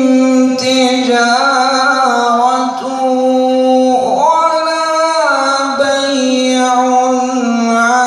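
A man's voice reciting the Qur'an in melodic tajwid style, drawing out long held vowel notes with a swooping ornament in the pitch about halfway through.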